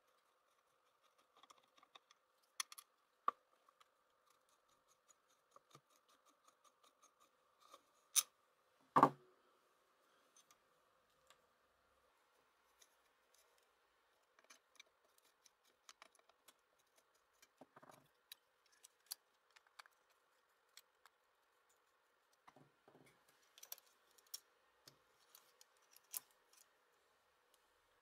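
Screwdriver working small screws and metal parts of a bench grinder's housing, making scattered small clicks and scrapes, with a louder clunk about nine seconds in.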